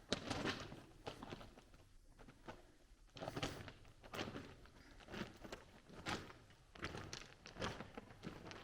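Footsteps of a person walking: a series of uneven steps, roughly one every second or less.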